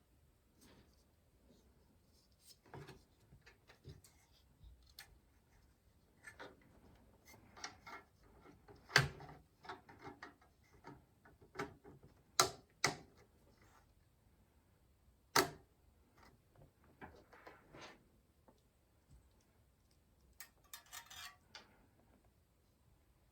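Hands fitting an Arctic Freezer 36 CPU cooler: scattered small clicks, taps and handling noises, with a few sharper clicks and a brief rustle near the end.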